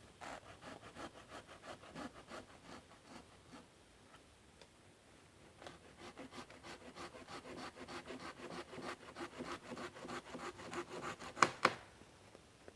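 Hand saw cutting through wood in quick back-and-forth strokes, about three or four a second, in two spells with a short pause between them and a sharper, louder stroke near the end.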